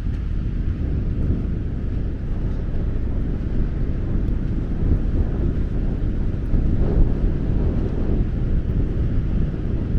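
Wind buffeting the camera's microphone: a steady, loud low rumble that swells and eases without pause.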